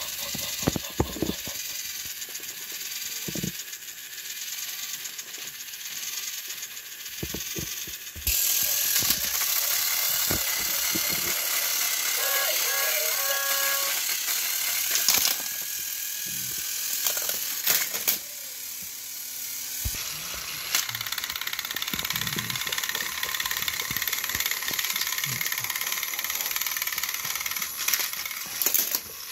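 Motorized Thomas & Friends toy engines pushing against each other on plastic track, their small electric motors and gears whirring steadily with scattered clicks and rattles. The whir gets louder about eight seconds in.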